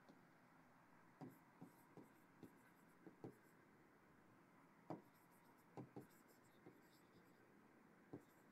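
Faint, irregular taps and clicks of a stylus on an interactive touchscreen display as words are written, about a dozen in all.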